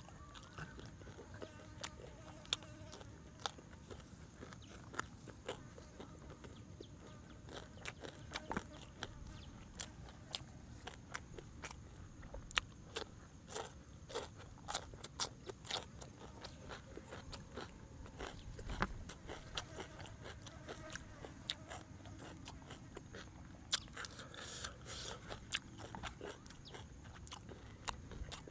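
Close-up eating sounds: biting and chewing crunchy fried mouse meat and raw cucumber and lettuce, sharp crunches coming at irregular intervals throughout. A faint, steady, high insect drone sits underneath.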